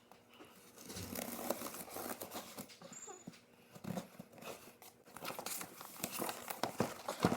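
Handling noise of a cardboard box and its packaging: rustling, crinkling and light knocks from about a second in, with a couple of brief lulls.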